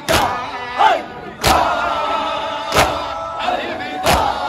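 Crowd of men doing matam, hands striking their chests in unison to make a sharp slapping beat about every 1.3 seconds. Between the strikes, many voices chant a noha in long held notes.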